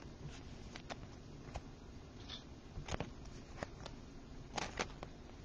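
Light clicks and taps of trading cards and thin plastic card sleeves being handled by gloved hands, scattered and irregular, the loudest a quick double tap about four and a half seconds in.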